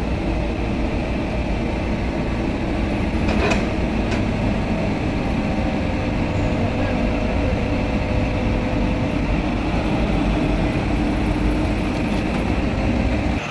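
An engine running steadily, a continuous drone, with a couple of faint knocks about three and a half seconds in.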